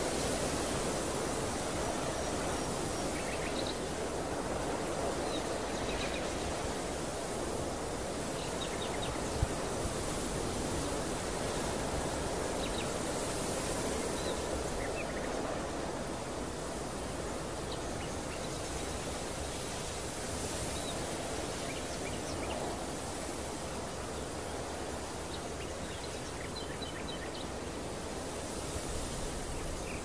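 Steady wind blowing over an open field of green barley, with short, faint bird chirps now and then.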